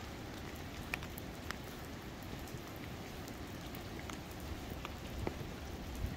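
Rain falling steadily: a soft, even hiss with a few sharp drop ticks scattered through it, the clearest about a second in.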